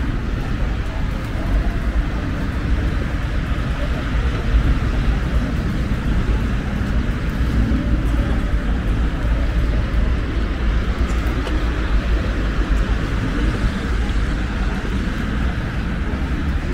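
Steady city street noise with a low rumble of road traffic throughout.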